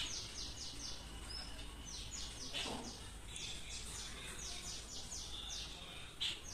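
A bird calling in the background: runs of short, high, falling chirps, about four a second, repeated in groups of four or five.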